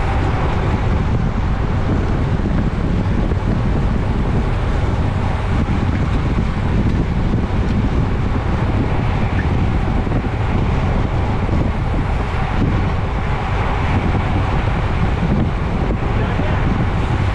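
Steady rushing wind noise on a bicycle-mounted camera's microphone while riding at racing speed.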